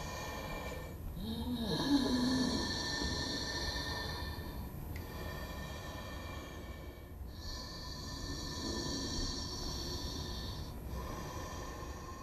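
Horror-film sound design: a ghostly woman's heavy breathing in long breaths broken by short pauses, over a steady high-pitched drone. About a second in, a low voice-like moan bends up and down in pitch.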